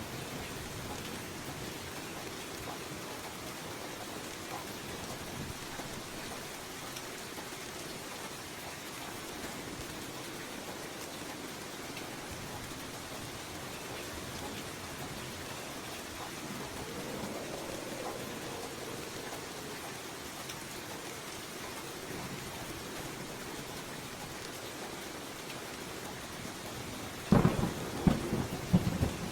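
Steady rain falling, an even hiss of drops. Near the end, a quick run of several loud, sharp cracks stands out above the rain.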